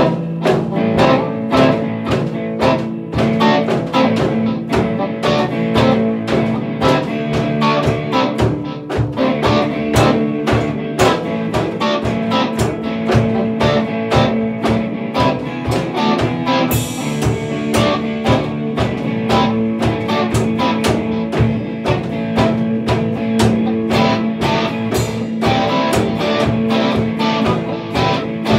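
Instrumental rock played by two electric guitars and a drum kit: a steady drum beat under sustained guitar chords and riffs.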